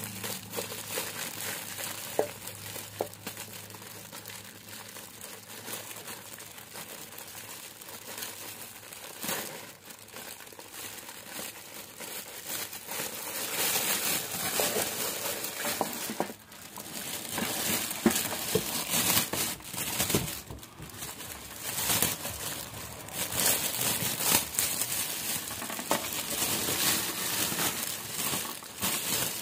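Clear plastic wrapping crinkling as it is handled and pulled off a room heater, with irregular crackles that get louder and busier about halfway through.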